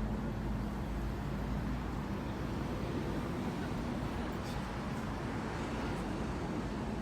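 Steady low rumble of a running road vehicle, with a faint steady hum and a couple of light ticks.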